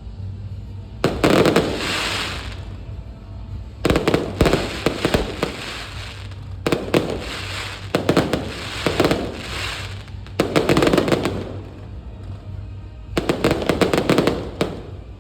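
Aerial fireworks shells bursting in quick volleys of sharp cracks, each volley trailing off into crackling. About six volleys go off a few seconds apart.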